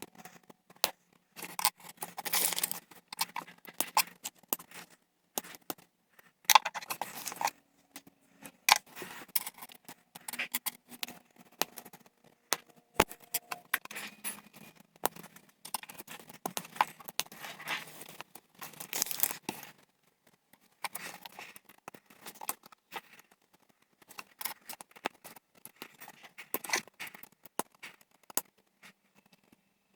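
LEGO plastic pieces clicking and snapping together as a set is built by hand, with many sharp clicks and several bursts of rustling from handling pieces and bags.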